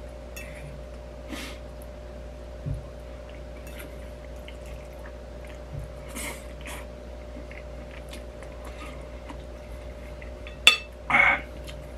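Knife and fork clinking and scraping on a plate during eating, with wet chewing sounds, over a steady low hum. A sharp clink near the end, then a louder short scrape.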